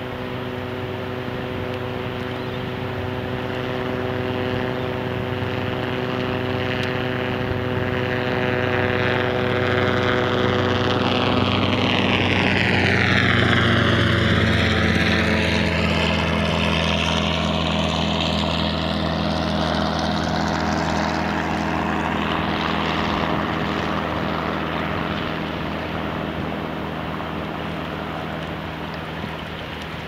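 Propeller aircraft flying over: a steady engine drone that grows louder, passes nearest near the middle with its pitch dropping, then fades away.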